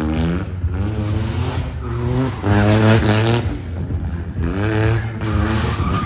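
Car engine revving hard on a gymkhana run, its pitch climbing and dropping back six or seven times as the driver accelerates and lifts off.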